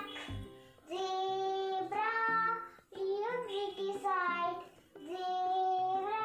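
A young girl singing a simple tune in three phrases, with long held notes and short breaks between them.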